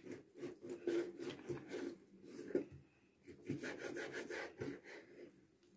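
Large kitchen knife sawing back and forth through raw beef against a wooden cutting board. The quick, irregular strokes come in two runs, with a short pause a little before halfway.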